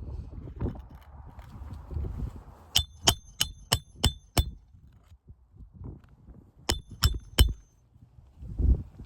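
Hammer striking a steel roof snake to drive a roofing nail under a shingle tab: six quick ringing metal-on-metal blows, then three more after a pause of about two seconds. Low shuffling and rustling on the roof surface comes before the blows, and there is a dull thump near the end.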